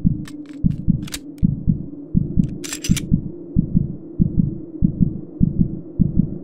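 Outro music with a deep, pulsing bass beat, about three thumps a second and often in pairs, with a few short high ticks in the first half.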